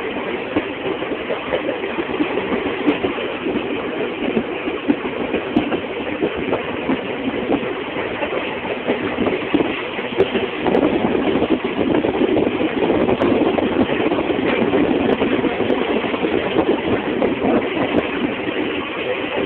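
Passenger train running along the track, heard from on board: a steady rumble and rail noise that grows louder about halfway through.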